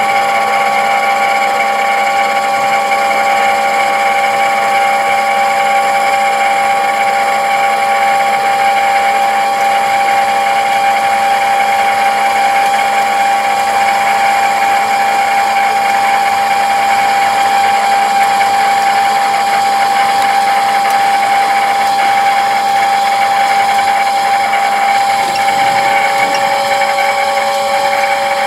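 CNC lathe running its spindle at about 1000 RPM while a turret-held tool takes a hand-fed test cut along a 1045 cold-rolled steel round bar. The result is a loud, steady machine whine with several held tones over cutting noise.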